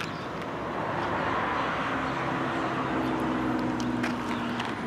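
A distant engine drone that swells about a second in and fades toward the end, as of something passing by, with one sharp click at the start.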